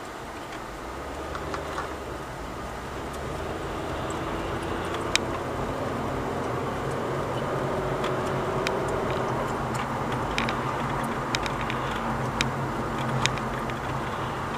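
Car engine and road noise heard from inside a moving car, a steady hum whose pitch shifts now and then, with scattered sharp clicks and knocks.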